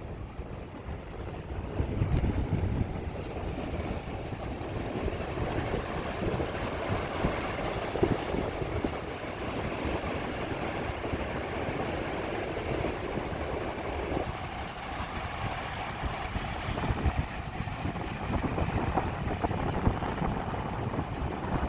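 Wind buffeting the microphone in gusts over the steady wash of surf on a beach at low tide.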